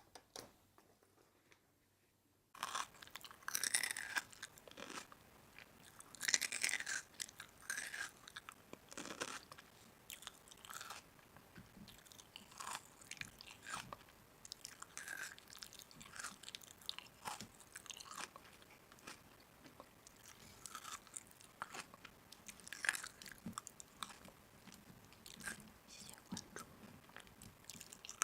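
Someone chewing and crunching food close to the microphone, in irregular crunches that begin after about two and a half seconds of near silence.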